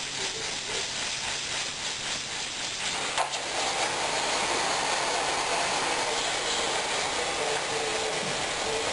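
Gas torch flame hissing steadily, heating the welded-in sheet metal of a Jeep CJ5 windshield frame to shrink a high spot; it gets a little louder about three seconds in.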